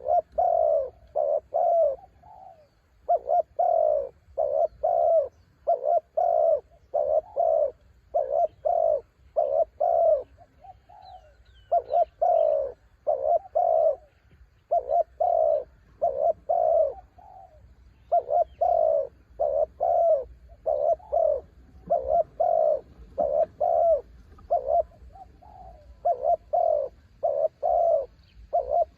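Spotted dove cooing over and over in rhythmic phrases of several short coos with brief pauses between them, with a few faint chirps from another small bird in the middle.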